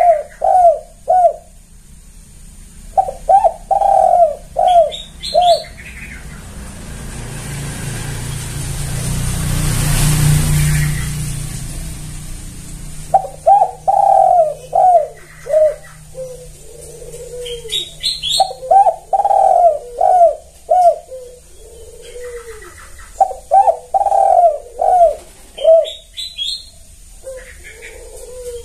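Spotted dove cooing in repeated phrases of several quick coos, with pauses between phrases. In the long pause about a third of the way in, a rumbling rush of noise swells up and fades away.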